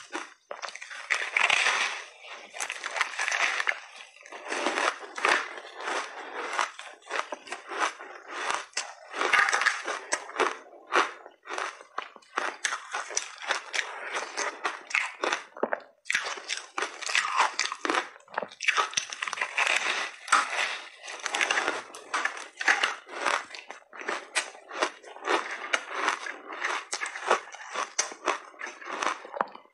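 Close-miked crunching of big bites of a frozen layered ice sandwich, the ice cracking and crackling between the teeth as it is chewed: a dense run of sharp cracks with louder clusters every couple of seconds.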